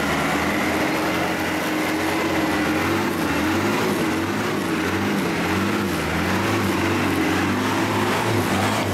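A Land Rover off-roader's engine running steadily, its revs wavering up and down.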